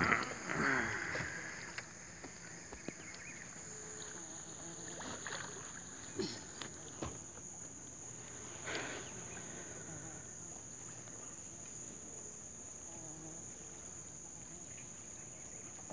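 Steady high-pitched insect buzz from the riverside forest, with a few faint knocks as a fishing net is hauled by hand into a small boat.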